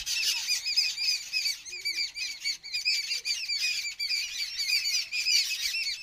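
A group of sparrows chirping rapidly and without letup, many short, overlapping calls a second, as they scuffle and fight on the ground.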